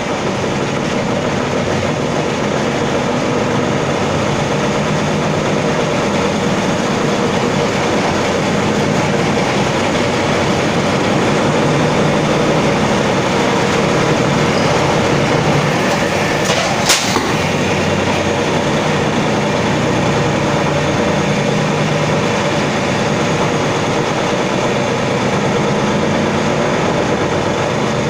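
Tesla electric drive motor running under a Turbo Electric controller's low-frequency VFD drive, a loud, steady drone. A single sharp snap comes about seventeen seconds in.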